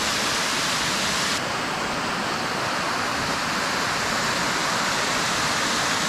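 Waterfall: water cascading in thin streams down a rock face, a steady rushing hiss with no breaks. About a second and a half in, the highest part of the hiss drops a little.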